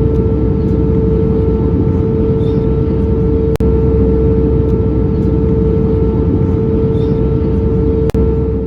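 Boeing 737 jet engines running, a loud steady drone with a constant humming tone and no rise or fall. The sound cuts out for an instant twice, about three and a half seconds in and near the end.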